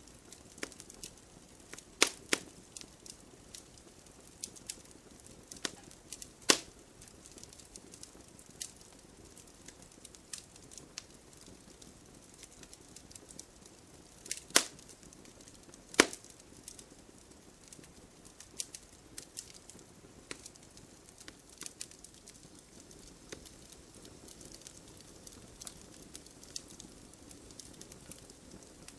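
Wood fire crackling: irregular sharp pops and snaps over a low steady hiss, with a few louder pops about two seconds in, around six seconds, and twice near the middle.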